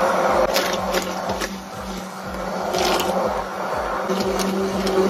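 Hand-held immersion blender running steadily in a glass bowl of curd-cheese cake batter, a constant motor hum, with a few short clicks.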